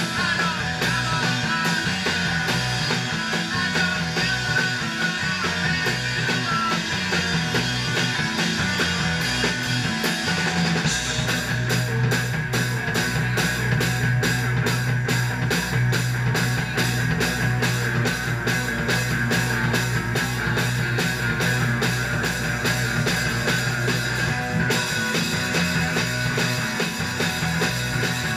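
Live rock band playing electric guitar and drum kit. About eleven seconds in the playing shifts into a fast, steady, driving beat, which changes again near the end.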